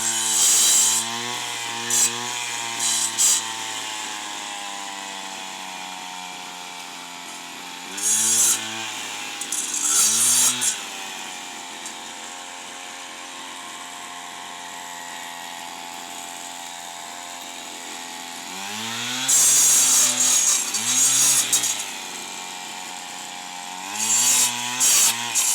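Stihl FS 160 two-stroke brushcutter with a chainsaw-tooth disc, revving up to full throttle in several bursts to cut thorny branches and dropping back to a low idle between them.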